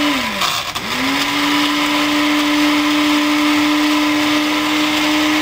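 Countertop blender with a glass jar grinding the last few cookie pieces into crumbs. The motor winds down just after the start, starts again about a second in, then runs steadily.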